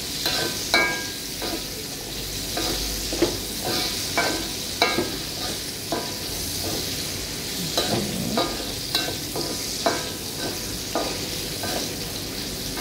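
Sliced onions sizzling in hot oil in a metal wok, with a steady hiss, while a metal spatula stirs them, scraping and clicking against the pan at irregular moments. The onions are being fried until soft and lightly yellow.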